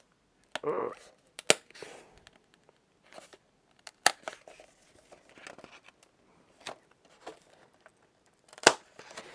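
A cardboard J-card glued onto a steelbook case being peeled off: paper tearing and crinkling as it pulls away from stubborn adhesive, with a few sharp clicks.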